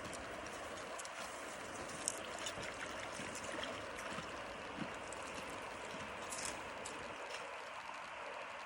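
Creek water running steadily over rocks, a continuous rushing and trickling, with a few faint clicks and small splashes through it.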